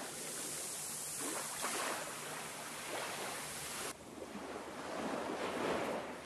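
Small waves washing onto a shingle beach, a steady hiss that cuts off abruptly about four seconds in, then swells again to a peak near the end.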